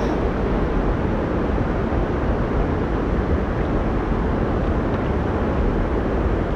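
Steady rushing noise of wind buffeting the microphone together with choppy river water moving around a kayak, even throughout with no distinct splashes or knocks.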